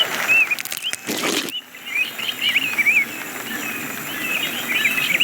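Small birds chirping: many short, quick chirps that rise and fall, over a steady outdoor hiss. Near the start a brief rush of noise swells and cuts off sharply at about a second and a half.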